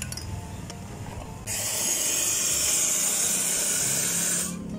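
Espresso machine's steam wand hissing. It starts suddenly about a second and a half in and cuts off shortly before the end.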